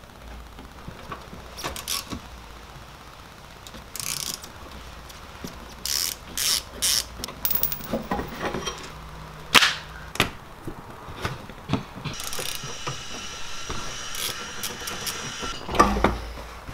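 Hand tools clicking and scraping as the screws holding a plastic mud flap on a car's wheel arch are worked out, with the flap scraping and creaking as it is pulled free. Irregular clicks and short scrapes, one sharp knock a little before halfway, and a longer squeaky rub in the last few seconds.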